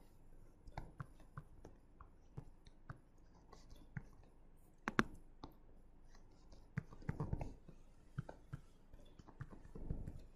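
Faint, scattered clicks and taps of a pen stylus on a tablet screen while drawing, with a sharper double click about five seconds in.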